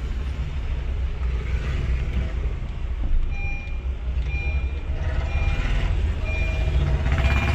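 Car's engine and road noise heard from inside the cabin while driving, a steady low rumble. From about three seconds in, a short high beep repeats about once a second.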